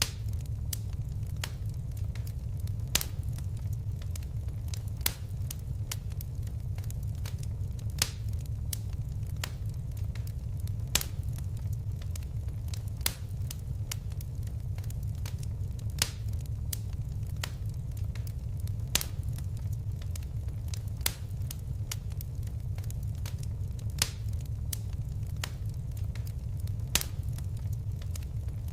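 Fireplace fire crackling: a steady low rumble of flames with sharp pops every one to three seconds.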